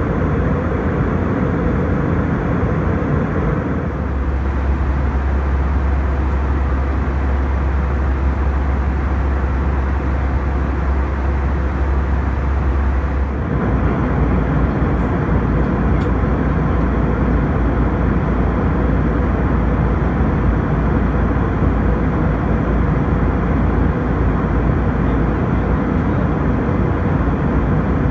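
Steady cabin noise of a jet airliner in flight: engines and airflow running. The low hum changes abruptly about 4 and 13 seconds in.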